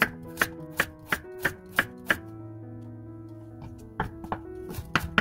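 Kitchen knife slicing a carrot into rounds on a wooden cutting board: a run of sharp knife strikes about three a second, a pause of about two seconds, then quicker strikes again near the end. Background music plays throughout.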